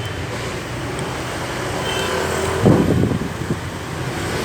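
Steady low mechanical hum, like road traffic, with a short rough rumble about three seconds in.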